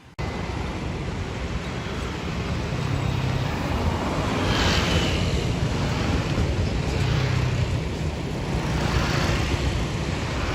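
Busy street traffic of motorcycles and cars: a steady din of engines and tyres that starts abruptly, with a brief higher tone near the middle.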